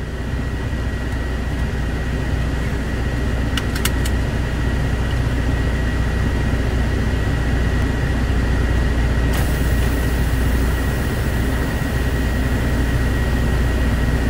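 Volvo semi-truck's diesel engine running steadily at idle, heard from inside the cab as a low rumble with a thin steady high tone over it. A couple of clicks sound about four seconds in.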